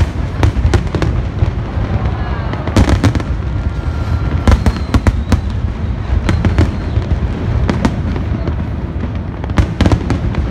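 Aerial fireworks going off in quick succession: many sharp bangs and crackles over a continuous low rumble of shell bursts, with a brief whistle about three seconds in.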